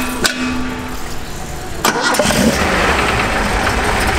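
Nissan Skyline 2000GT's L20 straight-six, on three twin-choke sidedraft carburettors with open velocity stacks, being started. A few clicks and a steady tone come first, then the engine catches about two seconds in and keeps running.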